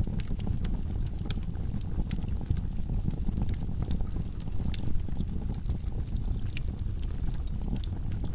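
Wood logs burning in a fireplace: a steady low rush of flame with frequent sharp crackles and pops scattered irregularly throughout.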